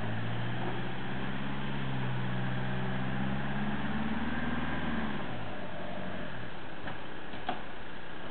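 Diesel engine of a Bremach Extreme off-road truck running at low speed as it crawls over an undulating cobblestone course. Its note rises a little about four seconds in, then drops away about five seconds in.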